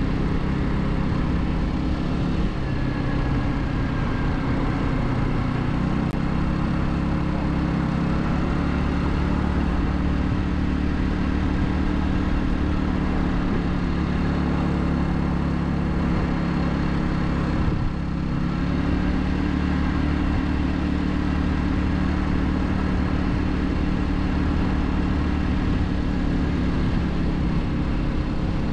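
Royal Alloy GT150 scooter's single-cylinder engine running while riding, with a steady rush of road and wind noise; its note shifts about two and a half seconds in and again with a brief dip about eighteen seconds in.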